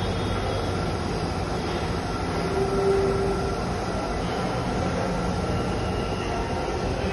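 Stainless-steel Dhaka Metro Rail train moving along the platform, a steady rumble of wheels and running gear, with a brief higher note about three seconds in.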